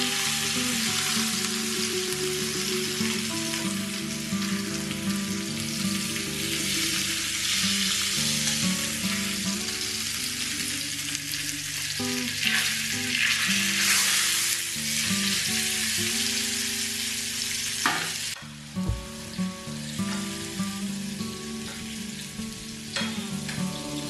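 Salmon fillets sizzling in hot oil in a frying pan while the oil is spooned over them, with soft background music. The sizzling is strongest past the middle and drops off abruptly about eighteen seconds in.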